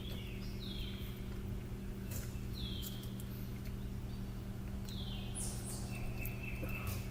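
A bird chirping repeatedly, short calls that slide down in pitch about once a second, over a steady low electrical hum.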